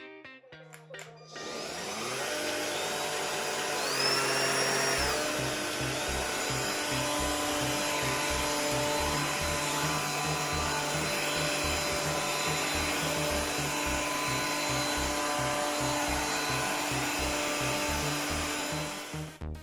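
AIGOSTAR Willie cordless stick vacuum cleaner running: a steady rushing motor-and-airflow noise that starts about a second and a half in and cuts off suddenly near the end. Background music with a steady beat plays over it.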